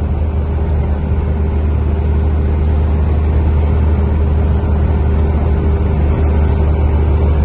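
Truck on the move heard from inside the cab: steady low drone of the engine with road and tyre noise, growing slightly louder.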